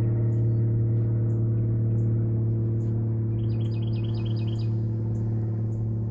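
A steady low hum with several overtones, unchanging throughout, while a bird chirps: faint high single notes about twice a second and a quick run of about five chirps midway.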